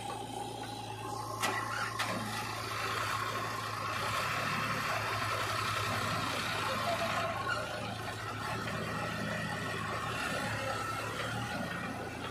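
Diesel engines of a JCB 3DX backhoe loader and a Sonalika tractor running together at close range, a steady hum that grows louder for a few seconds in the middle. Two sharp knocks come in the first two seconds.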